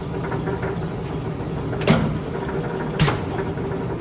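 Bliss C-60 mechanical punch press running with a steady hum. Two sharp clunks come a little over a second apart as the press cycles.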